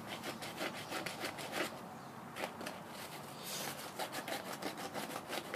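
Coarse sandpaper, about 60 to 80 grit, rubbed back and forth by hand over a pruned branch stub on a small bonsai's woody trunk, smoothing the nub down: quick rasping strokes with a brief pause about two seconds in.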